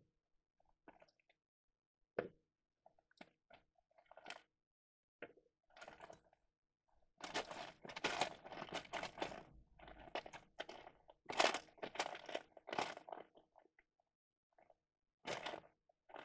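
Hands rummaging through a plastic box of loose electronic components, the capacitors and parts clicking and clattering against each other and the box. Scattered clicks at first, then a dense stretch of rummaging in the middle, and one more burst near the end.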